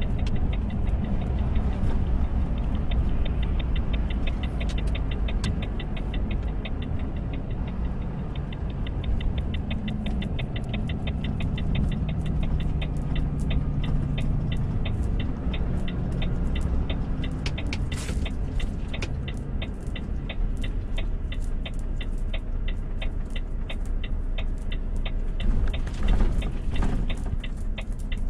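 Volvo truck's diesel engine running under way, with a steady fast ticking over it; the engine note shifts around the middle as the truck slows or changes gear.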